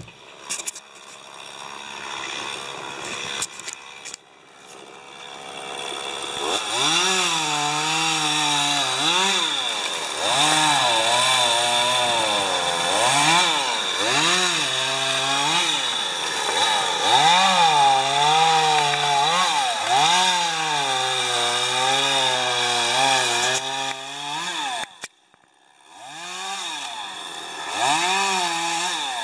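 Two-stroke chainsaw revving up and down again and again while cutting. It cuts off about 25 seconds in, then revs twice more near the end.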